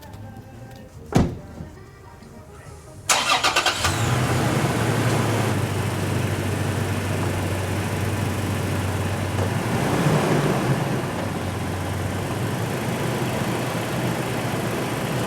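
A single thump about a second in. Then a Toyota Tacoma pickup's engine cranks briefly, catches and settles into a steady idle: the first start after an oil change.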